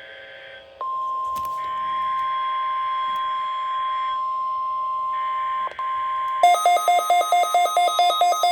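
NOAA Weather Radio warning alarm: a steady 1050 Hz tone begins about a second in. Bursts of buzzy SAME digital header data overlap it twice. About six and a half seconds in, a weather radio receiver's own alert starts beeping over it in rapid pulses, about three a second.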